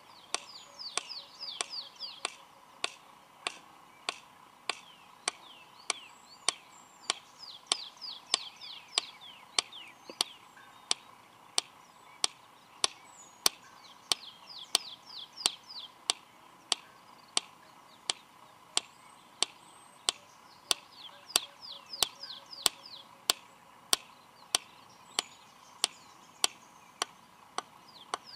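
Male red-crested korhaan making loud, sharp clicks with his beak, evenly repeated at about three clicks every two seconds: the bird's display sound before its whistled call. Runs of quick, high falling bird chirps come in every several seconds.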